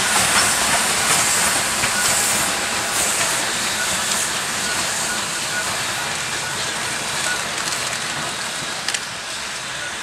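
Steam locomotive running past with a steady hiss of steam, its sound easing gradually as it draws away, with one sharp click near the end.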